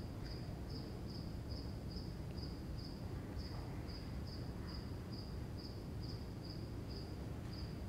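Faint cricket chirping, a short high chirp repeating steadily about two or three times a second, over low room hum.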